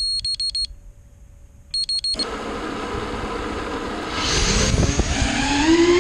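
A fast run of short, high electronic beeps from the RC plane's electronics, repeated briefly about two seconds in. Then the plane's electric motor spins up with a whirring that grows louder about four seconds in and becomes a pitched whine that wavers up and down with the throttle near the end.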